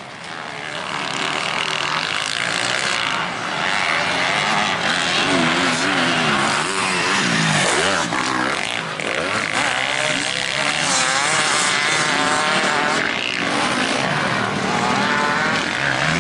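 Motocross bike engines revving up and down on a dirt track, the pitch rising and falling again and again as the throttle opens and closes.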